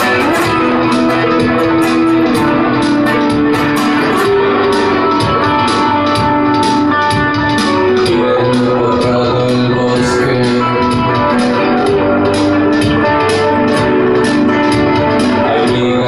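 Live indie rock instrumental: a guitar played over a steady beat, with held notes sustaining underneath.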